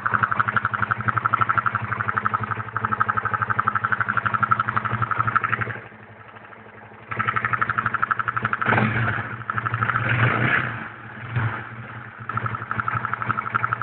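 Honda CB150R StreetFire's single-cylinder engine idling with a fast, even ticking rattle, the odd noise that shows up at about 1500 rpm idle when cold and fades with higher revs and a warm engine. The sound drops away for about a second roughly six seconds in, then comes back, more uneven and louder for a few seconds before it settles into the steady ticking idle again.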